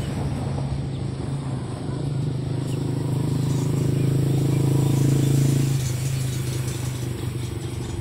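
A motor engine drones steadily at a low, even pitch, growing louder toward the middle and easing off again about six seconds in.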